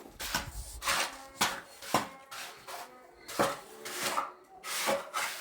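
Irregular scraping and rubbing strokes with sharper knocks, about one or two a second, of hand work on a hard surface.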